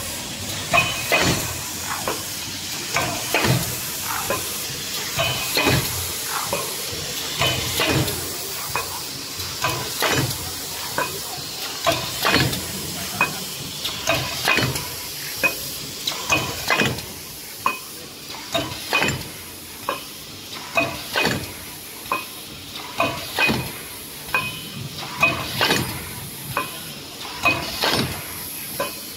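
Automatic paper lunch box thermoforming machine running: its pneumatic forming press and feed mechanism clack in a steady cycle, usually two sharp clacks close together about every two seconds, over a constant hiss.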